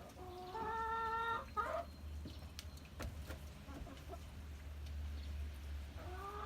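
Two long, drawn-out calls from a farm animal in a barn. The first lasts about a second and a half and ends in a quick glide; the second starts near the end. A steady low hum runs underneath.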